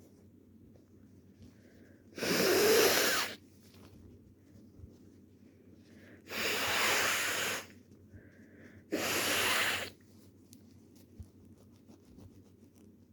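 A person blowing their nose hard into a tissue three times, each blow a long, loud, hissing blast of about a second, with faint sniffs between them.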